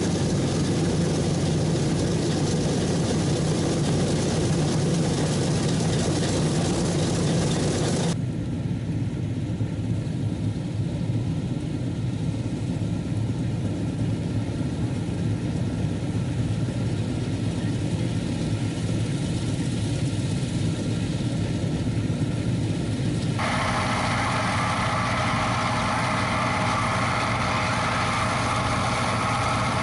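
Bizon combine harvester running while harvesting wheat: a steady diesel engine drone with the threshing machinery running under it. The sound changes abruptly twice, about eight seconds in and again around twenty-three seconds.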